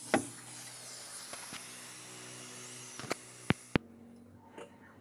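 Steady hiss with a faint low hum. It ends abruptly after a few sharp clicks about three and a half seconds in, leaving a quieter background.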